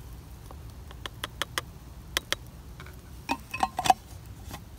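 Small plastic coffee canister tapped against a metal pot to knock out the last ground coffee: a run of about ten sharp clicks and light knocks, the loudest near the end.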